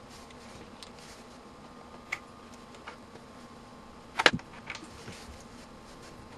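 A sharp snap, a quick double click, about four seconds in as the homemade surge generator is triggered and fires a surge pulse into the multimeter under test. A couple of faint ticks come before it.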